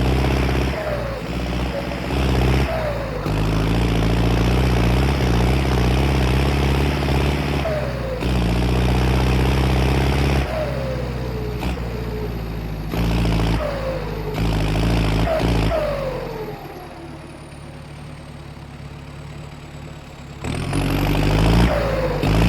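Belarus 1025.4 tractor's turbodiesel engine being revved in repeated blips, a turbo whistle falling after each. It settles to a quieter idle for about four seconds, with the high whistle slowly dying away, then is revved up again near the end as the whistle rises.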